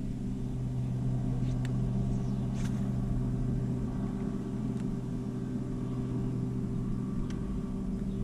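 Bass boat's bow-mounted electric trolling motor running with a steady hum, with a few faint clicks over it.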